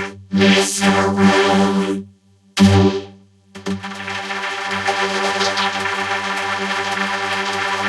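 Synthesizer music that cuts out abruptly twice, for about half a second each time, about two and three seconds in, then plays on steadily.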